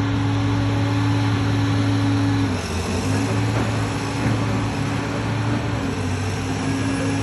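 A large engine running steadily, with a low hum over a noisy rush. Its pitch drops about two and a half seconds in and comes back up near the end.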